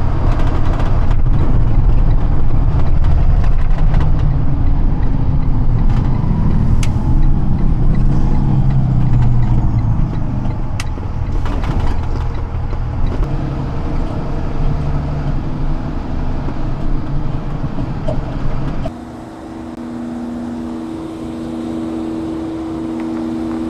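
Box truck on the move: a loud, steady engine and road rumble with a few sharp clicks. About three-quarters of the way through it drops abruptly to a quieter steady hum with two held tones.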